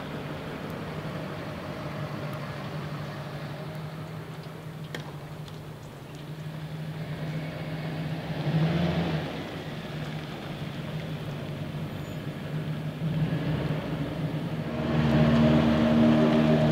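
Truck engine running with a steady low hum. It swells briefly about eight and a half seconds in, then grows clearly louder near the end as a truck drives closer.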